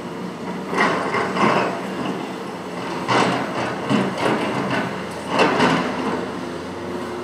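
Hitachi ZX470LCH-3 large tracked excavator working: its diesel engine runs steadily while the machine gives off a series of irregular metallic clanks and scrapes, about five loud ones spread over the few seconds.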